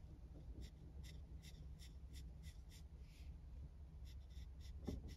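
Fine paintbrush flicking short strokes on textured watercolour paper: faint scratchy ticks, about two to three a second, with a short pause about three seconds in. A soft thump near the end.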